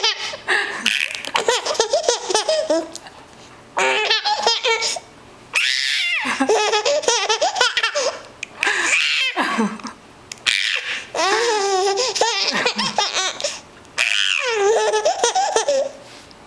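A baby laughing and squealing in high-pitched giggles, in several long bursts with short pauses between them.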